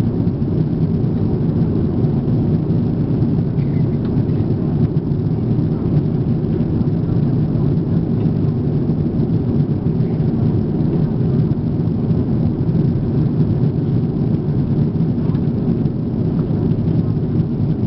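Steady low cabin noise of an Airbus A340-300 in flight: the engines and airflow heard from inside the cabin at a window seat beside the wing, an even rumble with no changes.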